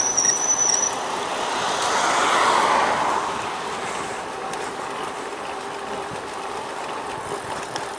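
Street traffic heard while cycling, with a car passing about two seconds in, its sound swelling and then fading. A short, thin, high squeak sounds in the first second.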